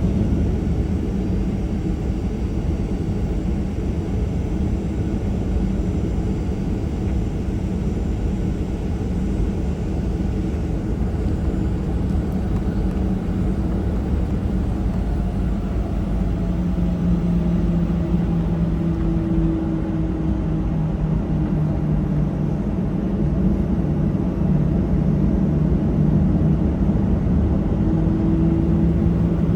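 Cabin noise of a Boeing 737-800 taxiing after landing: a steady low rumble from its CFM56-7B engines at idle. A low hum runs through it, shifting slightly lower and growing stronger about halfway through.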